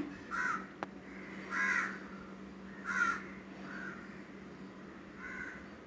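A crow cawing about five times at irregular intervals of a second or so, over a faint steady hum, with one light click about a second in.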